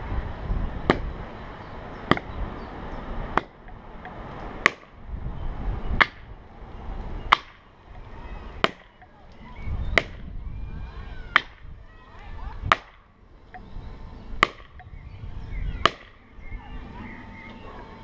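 Axe striking wood, twelve sharp, evenly spaced blows about one every second and a quarter.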